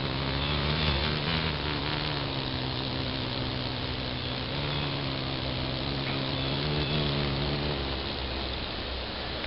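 Low, steady wing hum of a hovering hummingbird moth (a sphinx moth), swelling and fading as it moves about, dropping away about eight seconds in.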